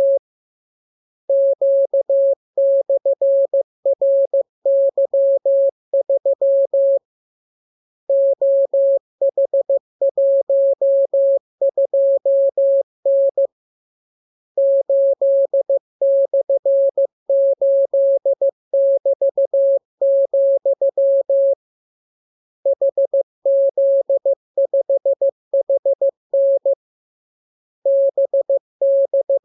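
Morse code practice tone: a single mid-pitched beep keyed on and off in rapid dots and dashes, sent as groups of characters with a pause of about a second between each group.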